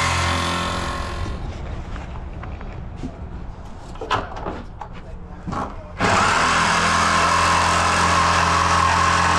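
A motor or engine running steadily. It fades out about a second in, leaving a quieter stretch with faint voices, then cuts back in abruptly about six seconds in.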